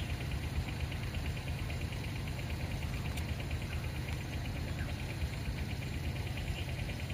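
A motor vehicle's engine idling with a steady low rumble, with a faint, fast, even pulsing higher up.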